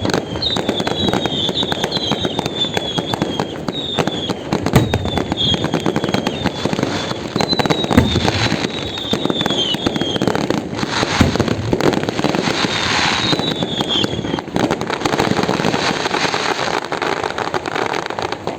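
Fireworks display going off continuously: a dense barrage of crackling and bangs, with many short high whistles falling in pitch, one after another.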